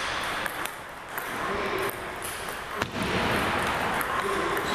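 A table tennis ball clicking sharply against the table and rubber-faced paddles in a series of separate hits, first bounced before a serve and then struck back and forth in a rally.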